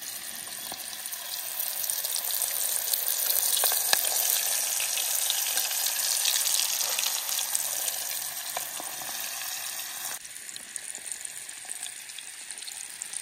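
Steady sizzling hiss with scattered crackles from cooking over a wood campfire. It grows louder toward the middle and drops a step about ten seconds in.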